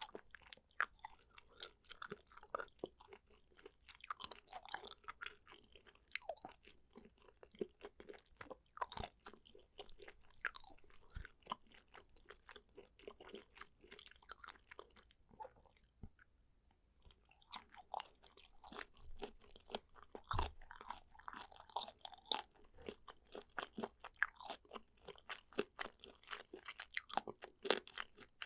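Close-miked eating sounds: a person chewing and crunching food with irregular wet clicks and crackles, with a short pause a little past halfway.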